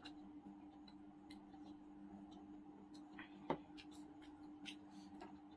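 Faint, scattered mouth clicks and lip smacks from a person drinking water and licking her fingers after eating, over a steady low hum, with one sharper knock about three and a half seconds in.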